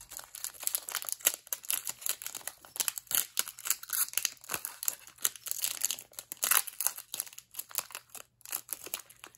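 Foil wrapper of a trading-card pack crinkling and crackling irregularly as hands work it and tear it open at the crimped seam.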